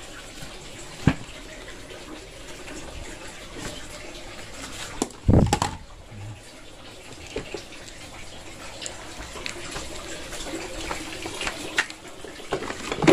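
Water running and splashing from a pipe, steady throughout. A sharp knock comes about a second in and a heavier thump about five seconds in.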